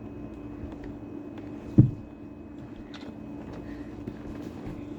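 A dog eating, faint scattered clicks of chewing over a steady low hum. A single loud thump comes a little under two seconds in.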